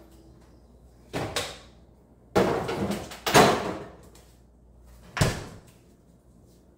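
Refrigerator door standing open while things are put away on its shelves: a few clicks and clattering scrapes, the loudest about three and a half seconds in. Then the door shuts with a single sharp thud a little after five seconds.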